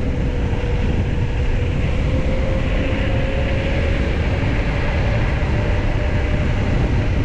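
Steady rumble of wind on the microphone and tyre noise from a moving mountain bike, with a faint tone slowly rising in pitch through the middle.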